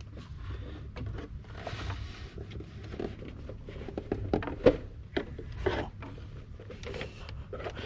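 Scattered light clicks, knocks and rubbing from the tensioner being levered with a socket wrench while the drive belt is worked onto its pulley.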